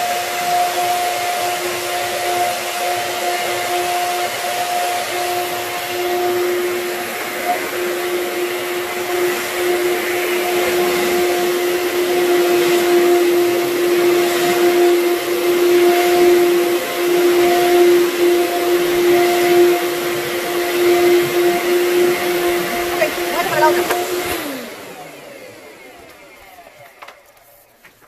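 Anway Clear Trak (Workhorse) upright vacuum cleaner running on a rug with a steady motor hum, then switched off a few seconds before the end, its motor winding down with a falling pitch.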